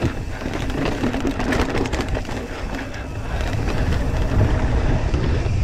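Mountain bike riding down a rough dirt trail: tyres crunching over dirt and stones and the bike rattling over bumps, with a run of sharp knocks about a second or two in. Wind rumbles on the microphone, growing louder about four seconds in as speed builds.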